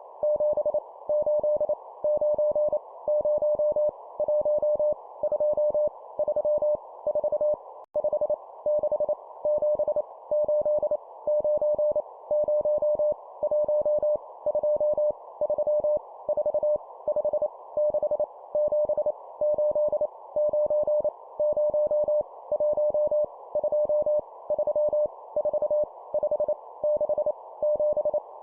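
Morse code (CW) tone sending numbers at 25 words per minute: one steady mid-pitched tone keyed on and off in dots and dashes, over a faint band-limited hiss.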